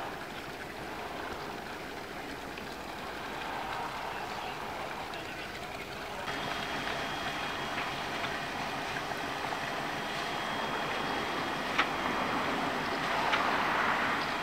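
Diesel engine of a 75 ft Admiralty motor fishing vessel running as the boat gets under way, under a steady rushing noise of water and wind that grows louder about six seconds in, with a faint steady whine. Two sharp clicks near the end.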